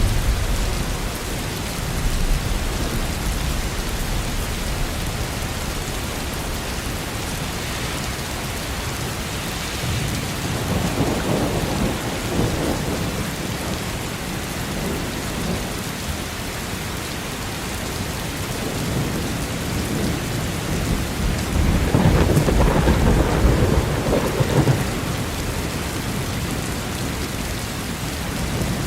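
Steady heavy rain, with two rolls of thunder rumbling up and fading, the louder one near the end.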